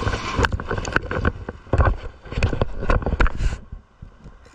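Shallow surf washing and splashing, with a run of irregular knocks and thuds close to the microphone as the camera is jostled, settling down near the end.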